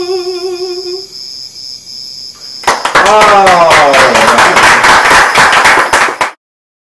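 A woman's held, wordless sung note with vibrato fades out in the first second. About three seconds in, loud clapping and a falling cheering whoop break out, run for about three and a half seconds, and then cut off suddenly.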